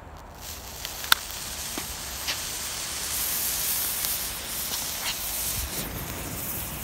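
A chunk of homemade ammonium perchlorate propellant catching light and burning with a hiss that builds over the first few seconds, with a few sharp pops as it throws sparks.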